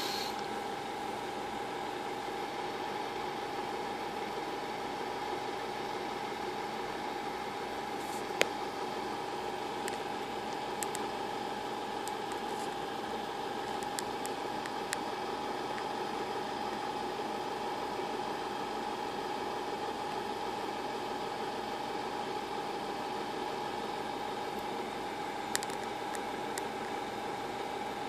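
A steady machine hum with an even hiss, holding one tone throughout, broken by a few short sharp clicks, the loudest about eight seconds in and another near the end.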